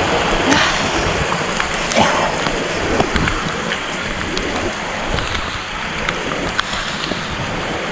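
Steady rush of falling water from a jungle waterfall, with a few faint clicks.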